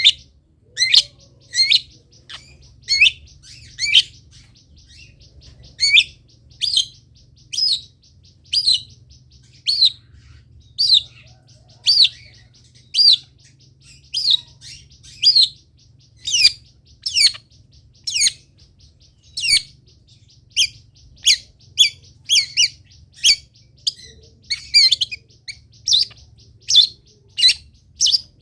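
A songbird repeating short, sharp, high chirps, roughly one to two a second and coming closer together in the second half, over a faint steady low hum.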